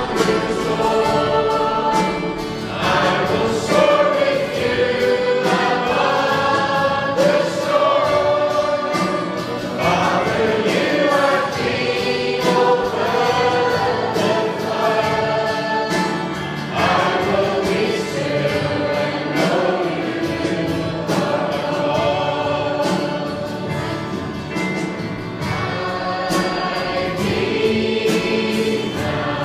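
A choir singing a Christian gospel song, with long held notes.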